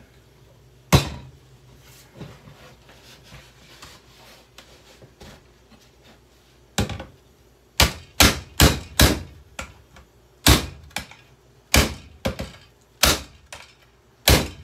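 Bissell handheld vacuum cleaner being smashed apart. One hard blow comes about a second in, then a quick run of about a dozen hard blows follows from about seven seconds in.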